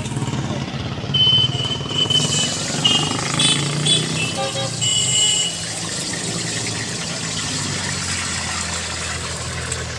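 Street traffic: engines running steadily, with several short horn toots in the first half.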